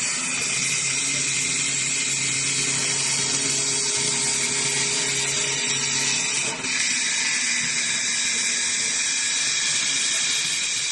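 CNC lathe running, a steady hiss over a low machine hum; the hum fades after a brief dip about six and a half seconds in.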